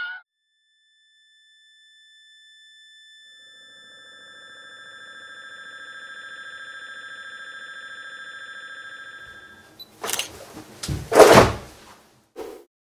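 A steady ringing tone of several pitches with a fast flutter, fading in slowly and cutting off abruptly: a ringing-ears sound effect. Near the end come a few loud thuds and rustles.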